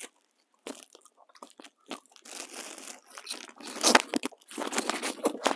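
A clear plastic wrapper crinkling and a hard white candy bunny being bitten and crunched, with the sharpest cracks about four seconds in.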